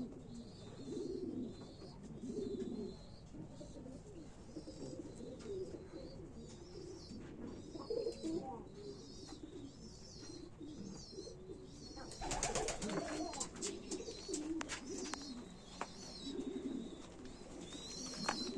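Domestic pigeons cooing in a loft, repeated low coos overlapping one another, with small high chirps alongside. About two-thirds of the way through comes a louder burst of rustling, clattering noise.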